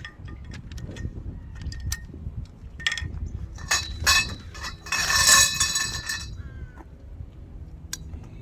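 Steel tubes of a portable pickleball net frame clinking and knocking together as they are fitted and slotted, with a louder, harsh clatter about four to six seconds in. Wind rumbles on the microphone.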